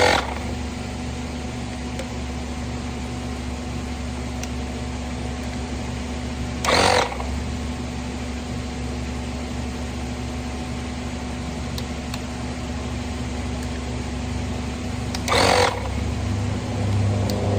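Astro AI portable tire inflator running with a steady motor hum while hooked to a car tire's valve. Three short, louder bursts of noise break in: at the start, about seven seconds in, and about fifteen seconds in.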